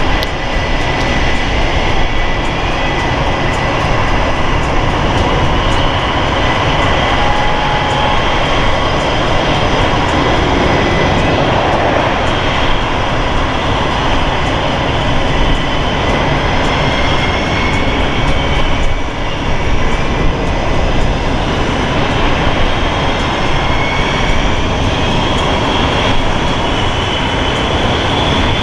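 Boeing F/A-18E/F Super Hornets' General Electric F414 turbofan jet engines running steadily: a loud continuous rush with several high whines that drift slowly up and down in pitch.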